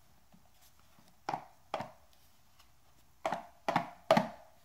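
Five sharp taps in two groups, two and then three, as a small rigid cardboard box is knocked against the hand to work it open.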